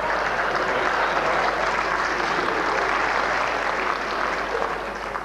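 Audience applauding, dying away at the very end.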